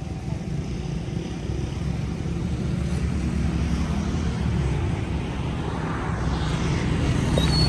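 Tata 407 four-cylinder diesel engine of a 25 kVA open generator set running steadily, growing somewhat louder toward the end.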